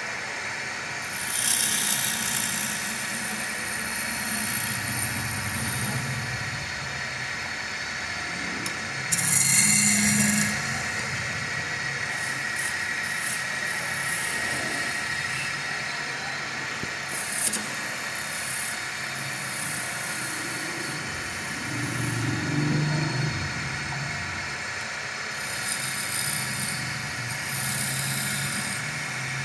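Wood lathe spinning a chair-leg blank while a hand-held chisel cuts into it: a steady lathe hum, broken by scraping hiss each time the tool bites. The hiss comes in repeated bursts of one to a few seconds, the longest near the end.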